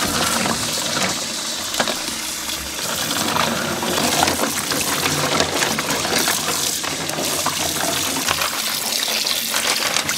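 Water running in a steady gush over a pot of freshly boiled crab claws to cool them, with occasional light clinks.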